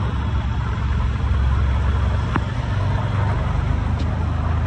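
Auto-rickshaw riding through heavy rain, heard from inside the open cab: a steady low engine drone under the hiss of the downpour. A sharp click about two and a half seconds in, and a fainter one near the end.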